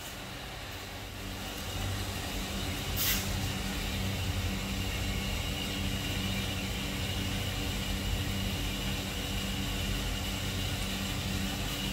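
Steady low mechanical hum, like a motor running, growing louder about a second and a half in, with a brief hiss about three seconds in.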